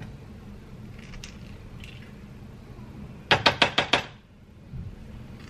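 A plastic spoon rapped quickly against the rim of a bowl, about six sharp taps in under a second, knocking scooped avocado off into the bowl. A couple of faint spoon scrapes come before it.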